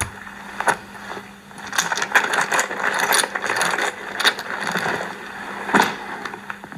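Small plastic buttons clicking and rattling against one another as they are handled, in quick irregular clicks, with a faint steady hum underneath.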